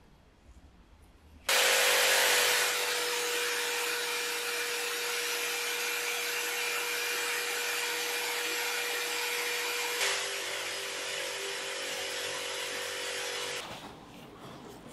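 Electric motor spinning a rusty steel pin in its chuck while a strip of abrasive cloth is pressed against it: a steady motor hum with a rough sanding hiss. It starts suddenly about a second and a half in, changes pitch about ten seconds in, and stops near the end.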